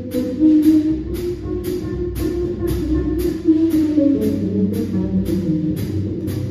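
Small jazz combo playing: acoustic grand piano, upright double bass and drum kit, with the drummer keeping an even ride-cymbal pattern over moving bass and piano notes.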